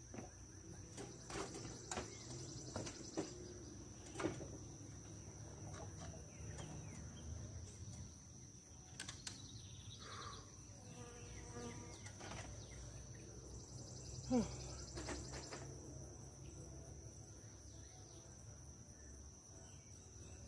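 A steady high-pitched insect drone, with scattered sharp clicks and knocks from hands and tools on the ladder and metal roof, the loudest about 4 and 14 seconds in.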